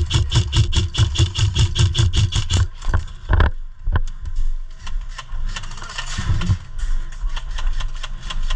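Airsoft electric rifle firing a long full-auto burst: a fast, even string of clicking shots that stops about two and a half seconds in. A single knock follows, then quieter rattling and scraping of gear.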